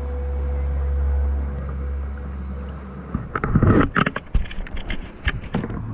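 Low wind rumble on the microphone, then from about three seconds in a run of irregular splashes and sloshing of water close to the microphone from a kayak moving over slightly choppy water.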